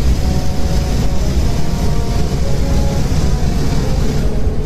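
Automatic car wash running, heard from inside the car's cabin: a loud, steady rumble from the machine as it works over the car.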